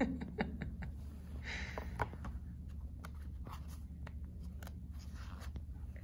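Pages of a picture book being handled and turned: scattered soft clicks and paper rustles, one sharper tap about two seconds in, over a low steady room hum.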